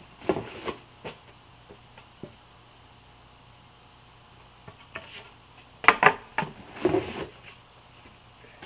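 Wooden skateboard decks being pulled out of a box and handled: short knocks and scrapes of deck against deck and box. They come in a cluster at the start and a louder one about six seconds in, with a quiet stretch between.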